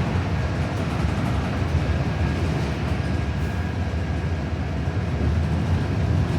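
Cabin noise inside a New Flyer XD40 diesel city bus: a steady low rumble from the engine and drivetrain, with road noise.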